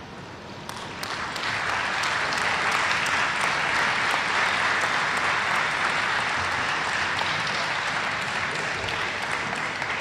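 Audience applauding, a dense patter of clapping that swells about a second in and then holds steady.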